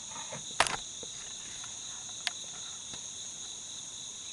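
Steady, high-pitched chorus of insects, with a sharp tap about half a second in and a fainter one a little after two seconds.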